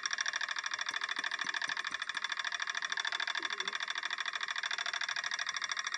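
Magnetic stirrer running with a stir bar spinning in a beaker of liquid: a steady high whine with a fast, even flutter.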